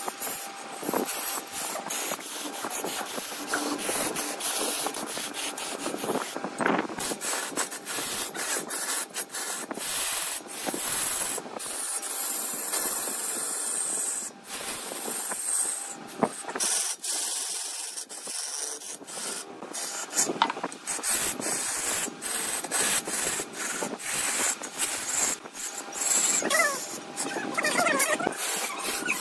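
Wood being turned on a large wood lathe: a continuous rough scraping hiss broken by many irregular ticks, with a faint steady tone underneath.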